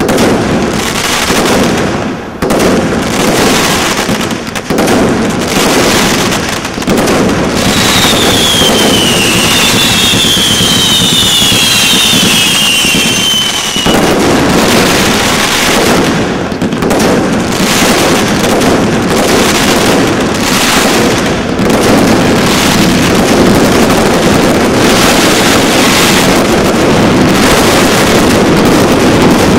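Category 3 combination Roman candle firework cake firing a rapid barrage of shots and crackling star bursts. Several falling whistles sound about eight to thirteen seconds in. From about halfway, the shots merge into one continuous dense crackle.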